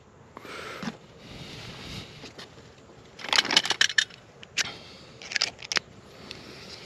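Scraping, crackling and clicking of a screwdriver and a green ground pigtail wire being handled while grounding an electrical box. It comes in short bursts, loudest about three to four seconds in, with a few single clicks after.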